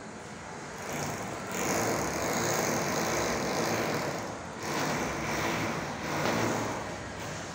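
A motor vehicle passing by: a rush of engine and road noise that builds about a second in, dips briefly, swells again and then fades away.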